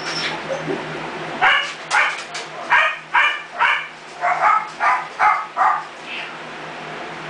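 Young mixed-breed puppy, not quite three weeks old, giving a string of about ten short, high yelps and squeals over some four seconds, starting about a second and a half in. It is a protest at littermates piled on top of it.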